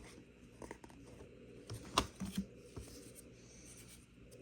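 Trading cards from a Score football pack being flipped through by hand: soft card-on-card slides and small ticks, with one sharper click about two seconds in.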